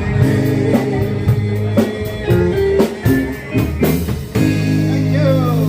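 Rock band playing with guitar and drums, then a chord held and left ringing from about four seconds in.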